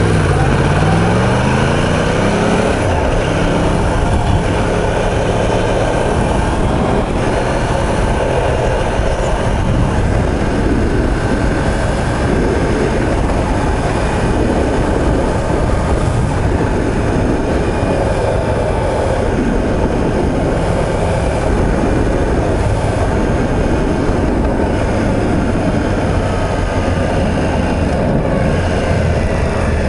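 Yamaha YZF-R1M's crossplane inline-four engine running under way, mixed with steady wind and road noise. About a second in, the engine pitch falls and then climbs again.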